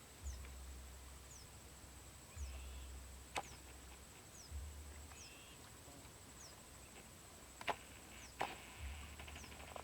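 Faint outdoor field ambience: a short, high, falling chirp repeats about once a second over a steady high-pitched whine. A few sharp clicks and some low rumbles come and go, with a quick run of ticks near the end.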